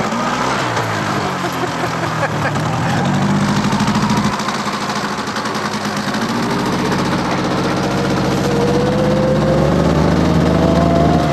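A motor vehicle's engine running, its speed changing, with the pitch climbing steadily over the last few seconds.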